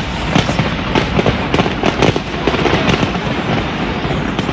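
Fireworks display: a dense, continuous barrage of bangs and crackles, several every second.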